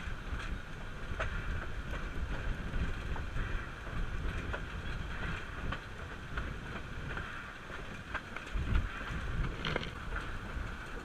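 Narrow-gauge NA-class steam locomotive rolling slowly along the track: a low rumble with hiss and wind on the microphone, and a scattering of irregular sharp clicks and knocks from the running gear and rails.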